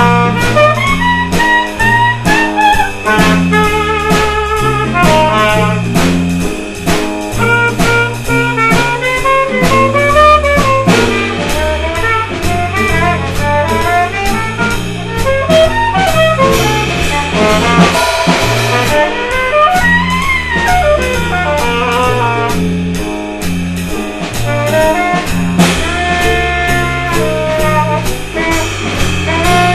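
A small band jamming in a jazz style. A drum kit beats out a rhythm with cymbal strokes, a wind instrument improvises a wandering melody, and an acoustic guitar plays over a low bass line.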